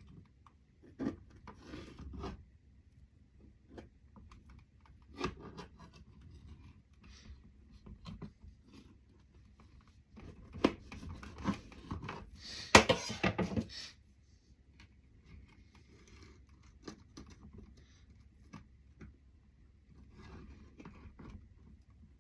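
Utensils handling a cheesecake on its pan base: scattered scrapes and light clicks, with a louder stretch of scraping and a sharp clack about halfway through.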